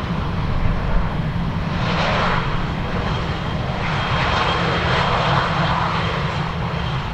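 Airbus A320-214's CFM56 turbofan engines running loud during the landing roll-out, a steady jet rumble and rush that swells about two seconds in and again a little later.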